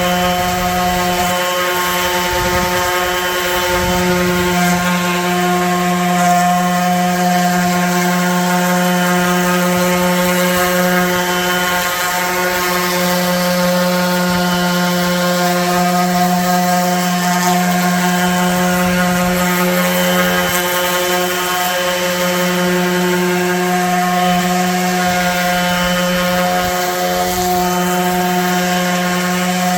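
Electric sander running steadily against wooden table boards, a constant motor whine with brief wavers in pitch as it is worked over the wood.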